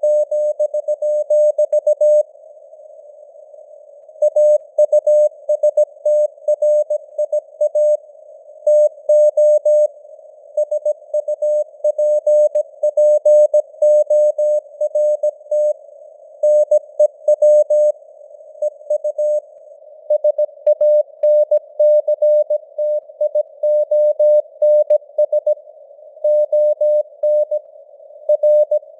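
Morse code sent at 17 words per minute: a single mid-pitched beep keyed on and off in dots and dashes, over a constant hiss of simulated radio band noise, with its signal strength fading up and down (QSB). There are longer breaks between groups, about two seconds in and again near eighteen seconds.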